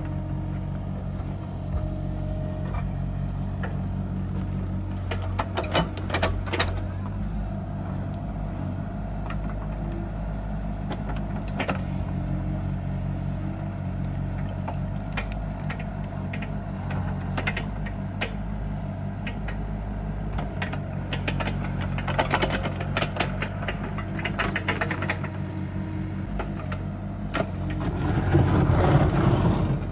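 Bobcat E37 mini excavator's diesel engine running steadily, with scattered metallic clanks and rattles from the machine at work, and a louder surge of the engine near the end.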